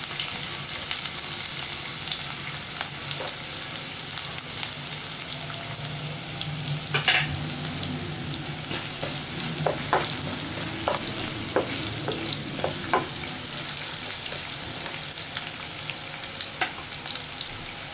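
Chopped garlic and ginger frying in hot oil in a pan, a steady sizzling hiss that eases slightly, with scattered sharp pops and crackles.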